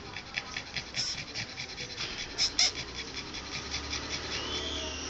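Pug panting in quick, even breaths, about five a second, with two louder breaths near the middle.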